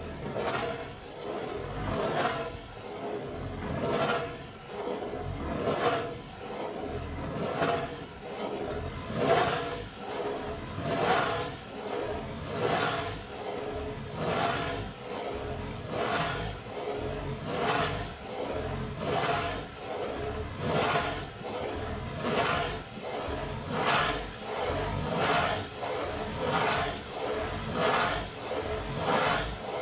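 Fingernails scratching in circles on the lid of a corrugated cardboard pizza box, a dry rasping scrape repeated in a steady rhythm of strokes that swell and fade with each circle.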